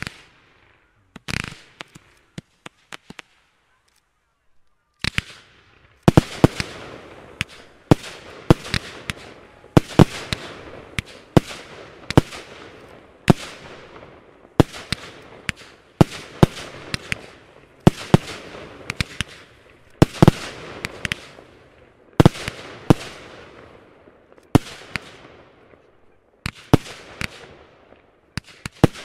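Fireworks being fired: a few scattered bangs and pops, a short pause, then from about six seconds in a steady volley of shots, roughly one to two a second. Each sharp bang is followed by a fading crackle.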